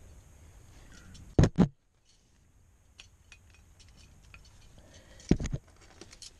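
Metal climbing gear, carabiners and protection on the harness rack, clinking in small scattered ticks as the climber moves. Two loud knocks come about a second and a half in, and another cluster of knocks a little after five seconds.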